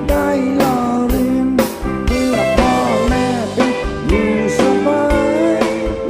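Live rock band playing a Thai songs-for-life number with a steady drum beat of about two hits a second. Over it runs a bending, sliding melody line with guitar.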